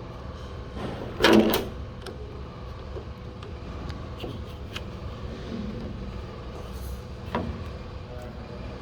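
Parts of a van's sliding-door handle assembly being handled and snapped together: a loud clatter about a second in, then a few lighter clicks, over a steady low hum.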